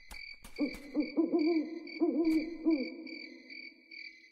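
Recorded spooky night sound effects of an animatronic Halloween show: an owl hooting in a quick run of short hoots that stops near three seconds in, over crickets chirping steadily at about three pulses a second. A few sharp clicks in the first half second.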